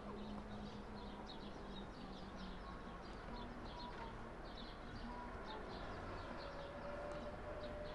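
Small birds chirping in the trees: a busy run of short, high chirps several times a second, over a low steady hum.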